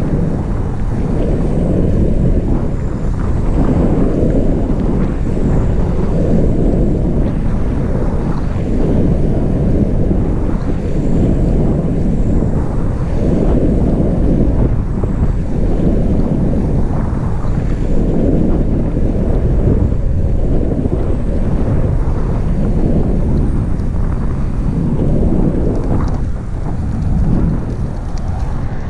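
Wind buffeting the microphone of a camera on a moving bicycle: a loud, gusty rumble that swells and fades every second or two.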